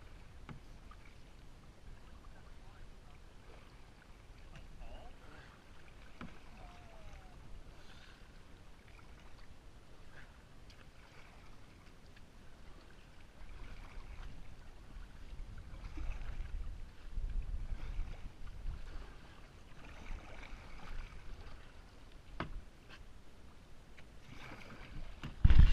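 Kayak paddling: the paddle dips and water splashes softly around the boat every second or two. A low rumble swells through the middle, and there are a couple of sharp knocks near the end.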